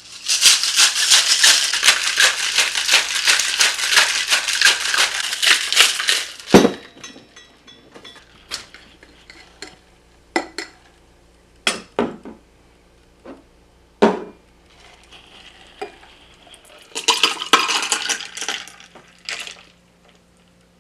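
Ice rattling hard in a cocktail shaker as the old fashioned is shaken for about six seconds. Then a series of separate sharp clinks and knocks of glass and metal, and near the end another burst of rattling lasting a couple of seconds.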